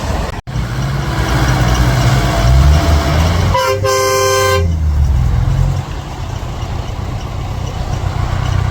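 Off-road 4x4 vehicle engines running with a low rumble, and a car horn sounding one steady blast of about a second, roughly three and a half seconds in.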